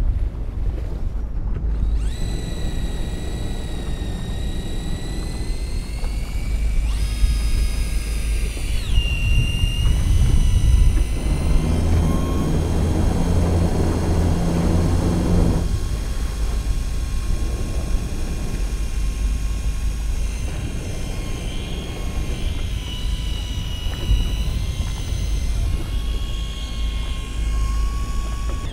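Daiwa Seaborg electric reel's motor whining as it winds in line, its pitch rising and falling several times as the winding speed or load changes. Under it is the steady low rumble of the boat's engine and the sea.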